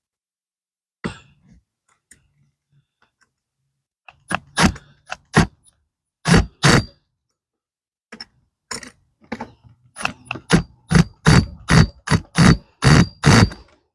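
Impact driver driving a hinge screw into wood in a series of short bursts, a few at first, then coming quicker and more regular over the last few seconds.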